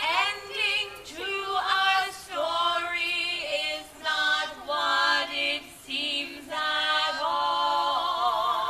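A group of voices, women's most prominent, singing a song together with no accompaniment heard, note by note with short breaks, ending on a long held note with vibrato.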